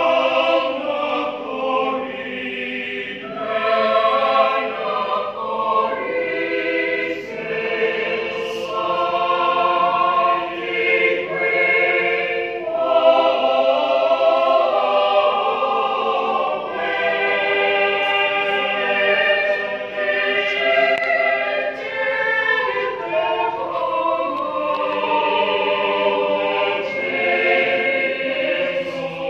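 Mixed church choir of men's and women's voices singing a sacred piece in several parts, with sustained chords and brief dips between phrases.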